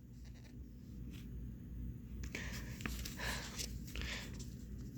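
Faint rustling of paper catalog pages being handled, a few soft scrapes about two to three and a half seconds in, over a low steady hum.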